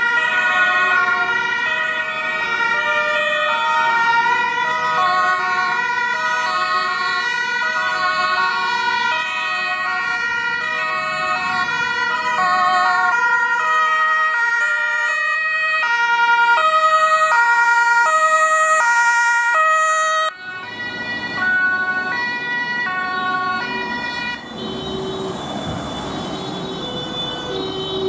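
Several emergency-vehicle sirens sound at once, each alternating between two pitches, overlapping out of step as a convoy drives off. About twenty seconds in the sound cuts abruptly, and the sirens go on over engine and road noise.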